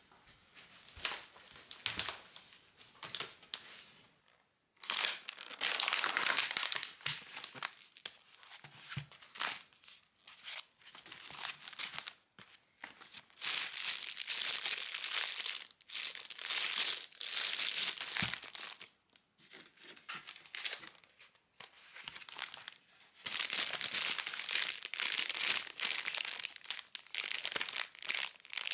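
Plastic food packaging crinkling and rustling as groceries are handled: clear plastic trays of shiitake mushrooms and tomatoes, and a plastic bag of seasoned fried tofu pouches. It comes in several stretches a few seconds long, with lighter taps and rustles between.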